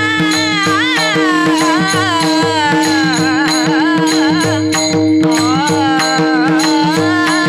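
Woman singing an ornamented Varkari kirtan melody over a steady drone, with pakhawaj drum strokes keeping a regular beat.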